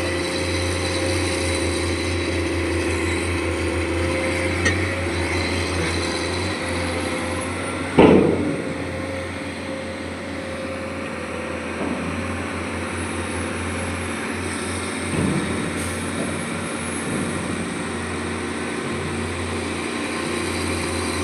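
Excavator's diesel engine running steadily under work, with a loud metallic clank about eight seconds in and a few fainter knocks.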